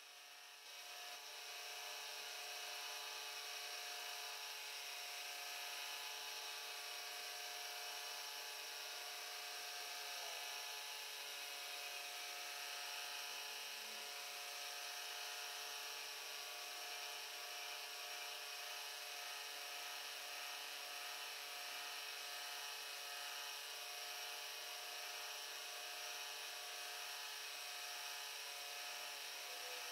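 Milling machine spindle running a tiny 1.5 mm end mill as it cleans up the inside edges of a cast pocket, a steady whine with a fine cutting hiss. It gets a little louder about a second in.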